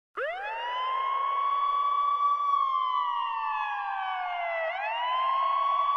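A siren winds up fast to a high note and holds it for about two seconds. It then slides slowly down and rises again to hold the high note near the end.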